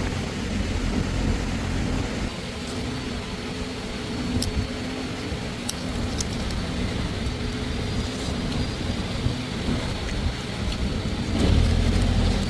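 An engine running steadily with a low rumble, with a few short sharp clicks over it.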